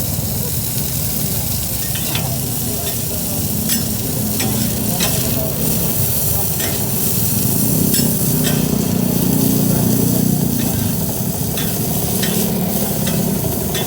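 Food frying and sizzling in hot oil in a pan, stirred with a metal utensil that clicks and scrapes against it now and then.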